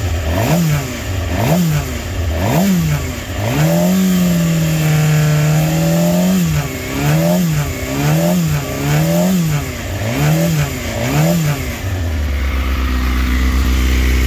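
2006 Suzuki GSX-R600's inline-four engine, with a Hindle full exhaust and quiet insert, being blipped in neutral while warming up: quick rev blips about one and a half a second, a held rise for about two seconds in the middle, more blips, then dropping back to a steady idle near the end.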